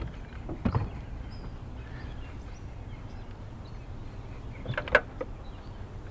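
Steady low hum with a few short knocks and clicks, about a second in and again near five seconds, the one near five seconds the loudest: handling noise aboard a fishing boat.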